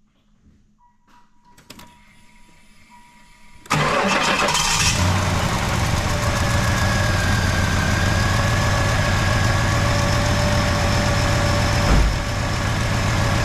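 After nearly four quiet seconds, the 1994 Cadillac Fleetwood Brougham's 5.7-litre LT1 V8 starts abruptly and settles into a steady, even idle, with one brief low thump near the end. There is no exhaust hiss: the newly replaced exhaust manifold is sealing, and the engine is purring like a kitten.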